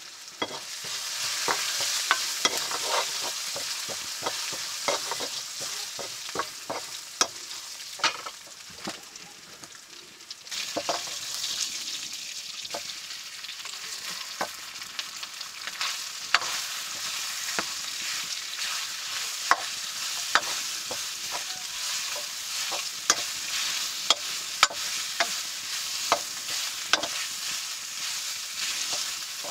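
Chicken pieces frying in oil in a black iron wok, with a steady sizzle. A metal ladle stirring against the pan makes frequent sharp clinks and scrapes over the sizzle.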